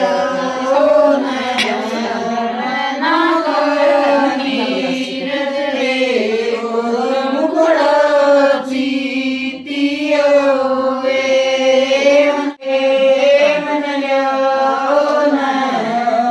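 A group of women singing a traditional Hindi wedding folk song together in unison, without instruments, with long held notes. The singing breaks off briefly once, about three quarters of the way through.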